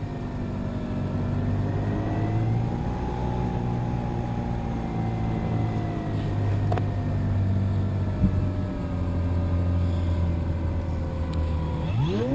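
Tower Hobbies Razor 3D RC airplane's motor and propeller running steadily in flight, its pitch slowly drifting lower. Near the end the pitch climbs sharply and then holds high as the plane powers up.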